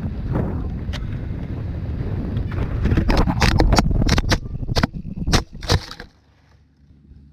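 Wind rush and tyre rumble on an action camera riding a dry dirt trail. About two and a half seconds in this gives way to a rapid run of hard clattering knocks as the camera tumbles over the ground, ending in three sharp single knocks before the sound drops away.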